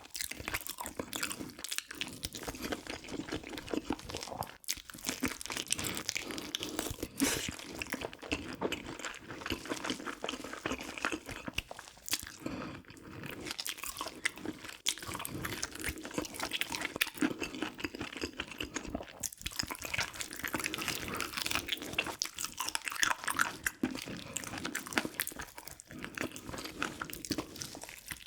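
A person chewing and biting food close to the microphone: a dense run of small crunches and mouth sounds.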